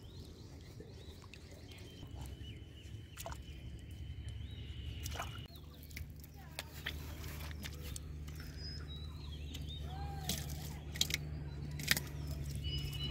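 Faint bird calls over a steady low hum, with a couple of short wet pats near the end as a hand smooths wet mud.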